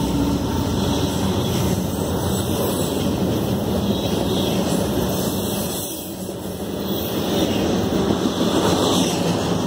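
Freight train cars rolling past close by: a steady rolling noise of steel wheels on rail, dipping briefly about six seconds in.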